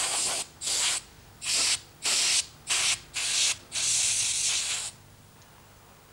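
Airbrush spraying paint in short hissing bursts, about seven of them with brief gaps, the last one about a second long. It stops near five seconds in.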